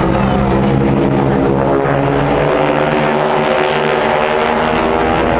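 Propeller engines of a four-plane aerobatic formation flying overhead: a steady multi-tone drone whose pitch shifts slightly about halfway through.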